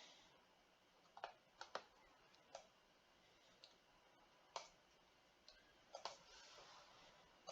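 Faint, irregular computer mouse clicks, about ten of them spread over several seconds, against near silence.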